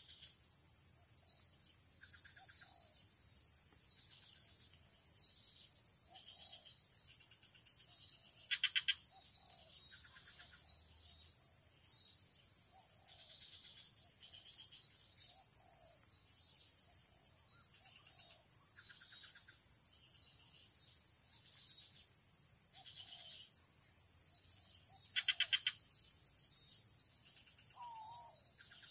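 Outdoor ambience: a steady high insect drone, with birds calling on and off. Twice, about nine seconds in and again near the end, there is a louder quick burst of about four notes.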